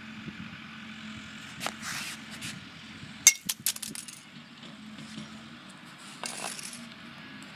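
Hard plastic pieces of a broken flip phone knocking and scraping, with a quick cluster of sharp clicking impacts about three seconds in and a short scrape near the end.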